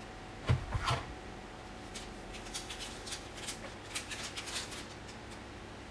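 Packaging being opened by hand: a few knocks from a small cardboard box about half a second in, then crinkling and crackling of white plastic or paper wrapping.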